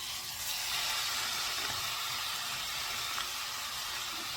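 Ground beef sizzling in a hot frying pan with sautéing carrots and onions, the sizzle swelling in the first half second and then holding steady.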